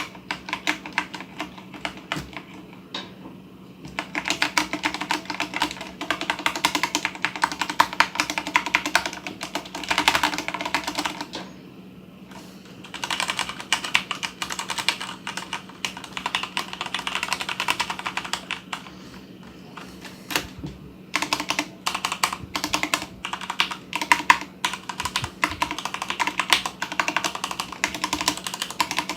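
Typing on a mechanical keyboard fitted with stainless-steel keycaps: fast runs of clacky keystrokes. It starts about four seconds in and breaks off briefly around twelve and twenty seconds.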